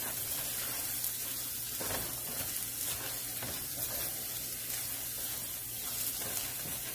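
Creamy chicken pot pie filling sizzling steadily in a pan on low heat while a spatula stirs it, with a few faint scrapes against the pan.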